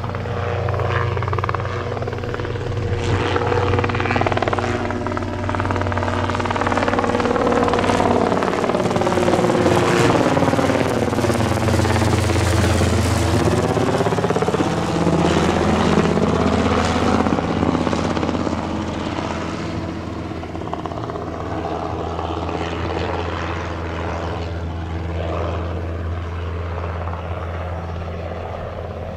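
Robinson R22 helicopter flying past overhead: the steady low beat of its two-blade rotor and piston engine grows louder to a peak about twelve seconds in. As it passes over, the sound takes on a sweeping, swirling change of pitch, then it slowly fades.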